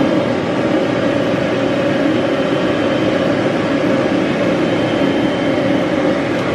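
Handheld hair dryer running steadily, blowing air onto a puppy's coat.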